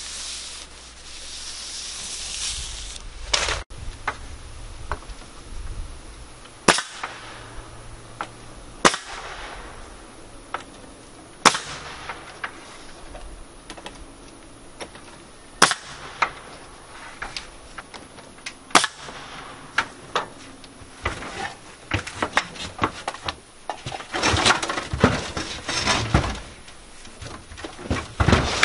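Cordless nail gun firing single nails into window trim: about six sharp shots a few seconds apart. A quicker run of clattering knocks near the end.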